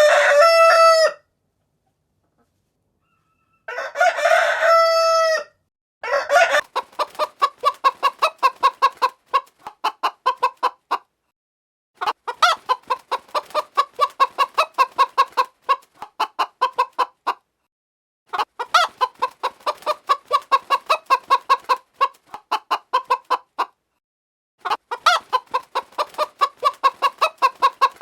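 A rooster crowing, the end of one crow and then a full crow about four seconds in, followed by chicken clucking in long runs of rapid clucks, about five a second, with brief pauses between the runs.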